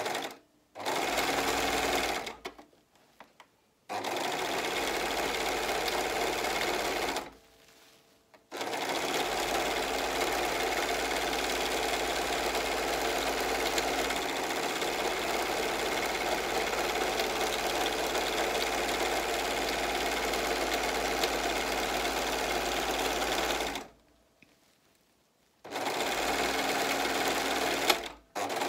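Singer four-thread serger (overlock machine) sewing sequined fabric, running in bursts: two short runs with brief pauses, then one long steady run of about fifteen seconds, a pause of about two seconds, and another short run near the end.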